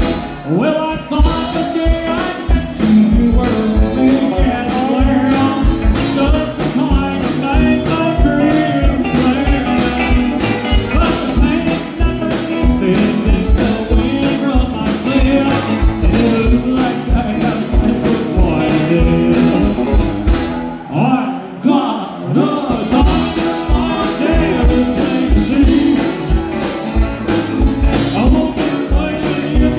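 A live band playing loud, amplified country-rock with electric guitars, accordion, keyboard and a steady drum beat. The drums drop out for about a second two-thirds of the way through, then the beat comes back.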